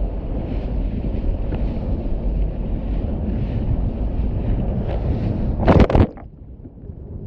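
Wind buffeting the microphone aboard a ship, over a steady low rumble. Near the end comes one loud, brief rush, after which the sound drops quieter.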